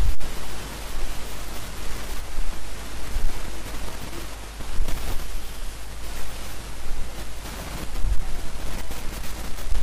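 Steady hiss and low hum from an open voice-over microphone, with a few short knocks near the start and again around five and eight seconds in.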